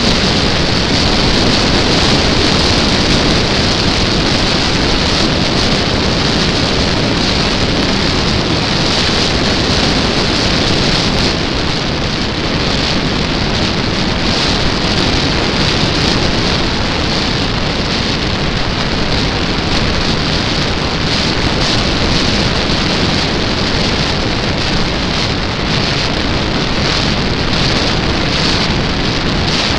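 Air rushing over a small camera mounted under the wing of a flying model Cessna Corvalis, with its propeller noise blended in: a loud, steady hiss that does not change.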